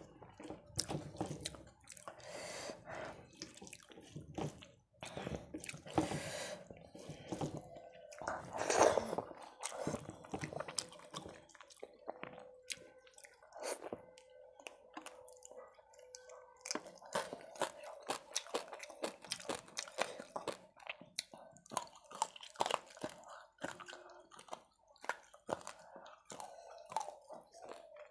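Close-miked mouth sounds of someone eating rice and fish curry by hand: wet chewing and lip smacks in quick, irregular clicks, with a louder smack about nine seconds in. At the start, rice squishes as it is mixed with the fingers.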